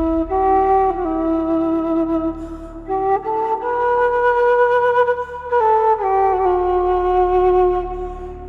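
Solo flute playing a slow melody of long held notes that slide from one pitch to the next.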